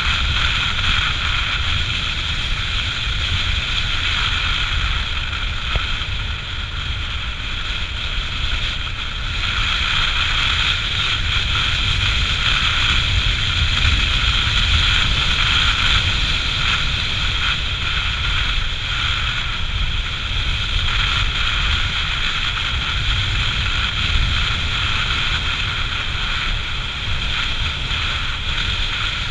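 Motorcycle cruising at road speed: heavy wind buffeting on the microphone over the steady running of its engine.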